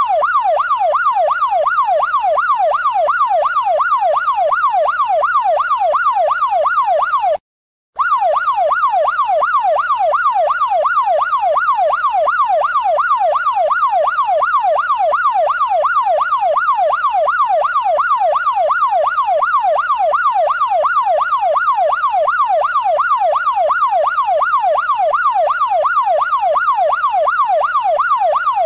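Electronic police siren in a fast yelp, its pitch sweeping rapidly up and down several times a second. It cuts out for about half a second some seven seconds in, then resumes.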